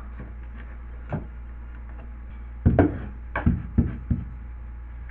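A few sharp knocks and taps of a cut-out drywall piece being handled and pushed into its opening in the wall: one tap about a second in, then four or five knocks in quick succession over the second half, over a steady low hum.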